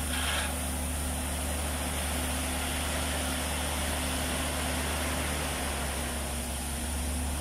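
Heavy dump truck's diesel engine running at a steady pitch while its tipper bed is raised to dump gravel.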